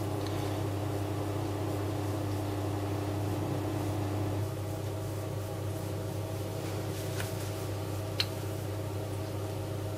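Steady mechanical hum, low with several steady tones above it; one of the higher tones stops about halfway through. A single faint click near the end.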